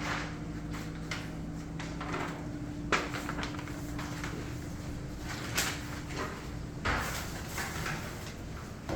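A steady low hum with a few scattered knocks and clatters; the hum stops about seven seconds in.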